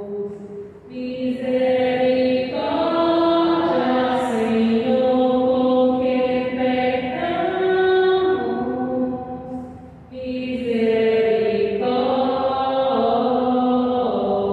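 A woman singing the responsorial psalm into a microphone: a slow, chant-like melody of long held notes, with short breaks about a second in and near ten seconds in.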